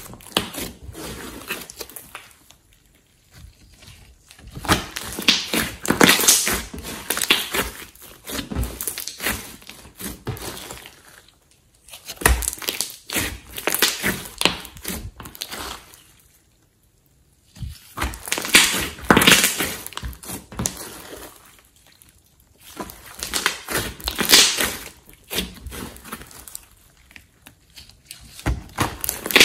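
Hands squeezing and kneading a large batch of thick, glossy slime: sticky squishing with crackling, clicking pops. The sound comes in bursts, with short pauses about three seconds in and again a little past halfway.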